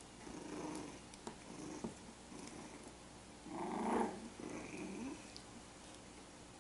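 Young puppies play-fighting, giving small low growls in several short spells, the loudest about four seconds in.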